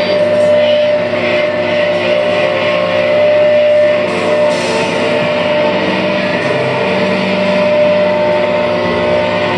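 Loud live experimental music: a dense, steady drone of many held tones over a noisy hiss, with no clear beat.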